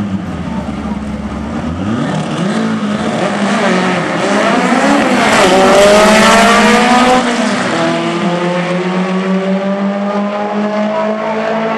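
Volkswagen Beetle drag cars racing down the strip, their engines revving hard with pitch rising and shifting. The engines are loudest about six seconds in, then settle to a steadier tone.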